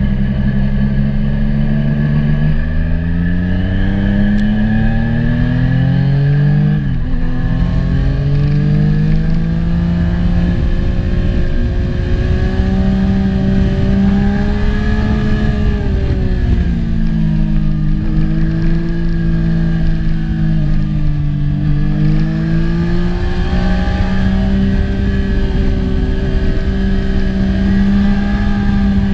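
Yamaha FZ-09's 847 cc inline-three engine under way, revs climbing with a sharp drop about seven seconds in like a gear change, then easing off and picking up again twice. Steady wind rush runs under it.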